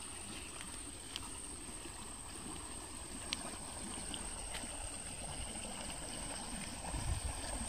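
Shallow muddy stream flowing and churning over a small drop, a steady rushing of water.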